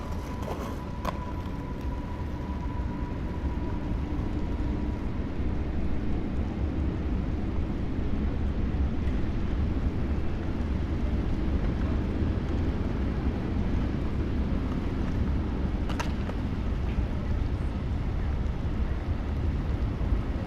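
Skateboard wheels rolling over concrete, a continuous low rumble that builds over the first few seconds and then holds steady, with a sharp clack about sixteen seconds in.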